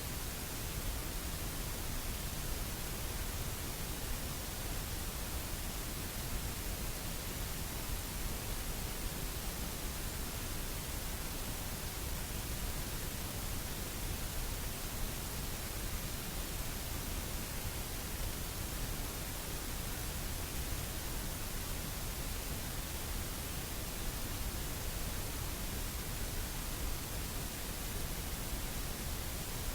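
A steady, even hiss like static, unchanging throughout, with no other sound heard.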